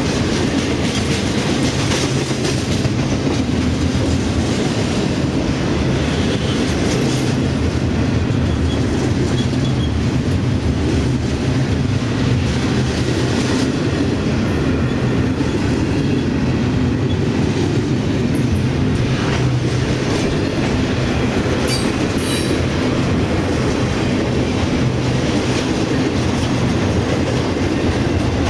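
Intermodal freight train's container cars rolling past at close range: a steady rumble of steel wheels on rail, with clacks over the rail joints and a few brief wheel squeals.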